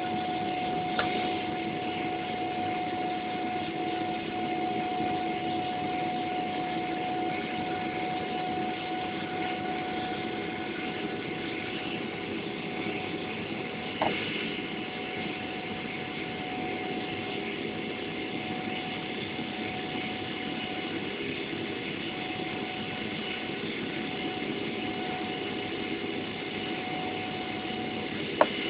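Boeing 777-300ER's GE90-115B turbofan engines heard from inside the cabin as the airliner climbs out after take-off: a steady jet din with a steady hum running through it. Three short knocks sound, about a second in, halfway through and near the end.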